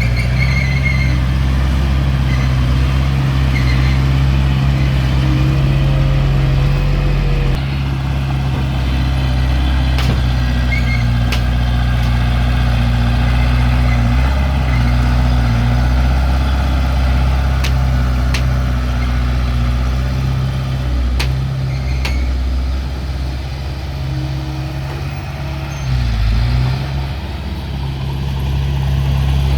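Diesel engines of heavy earthmoving machinery running steadily, with a few sharp metallic clicks. The engine dips and picks up again briefly near the end.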